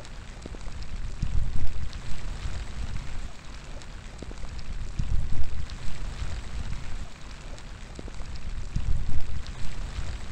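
Steady rain falling, with single drops ticking close by. Wind gusts rumble in three times, about 1.5, 5 and 9 seconds in.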